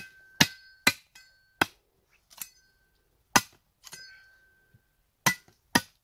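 Meat cleaver chopping at the tip of a wooden stick to sharpen it into a spear point: about nine sharp blows at an uneven pace, some leaving a short metallic ring from the blade.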